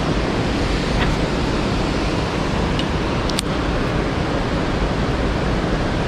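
Steady rushing noise of water filling the whole soundscape, with a few faint clicks around the middle.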